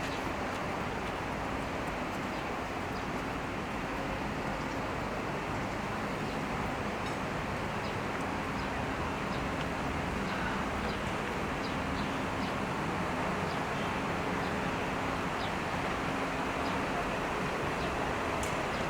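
Steady urban outdoor ambience: a constant wash of traffic noise with a low hum, and faint short chirps recurring about once a second.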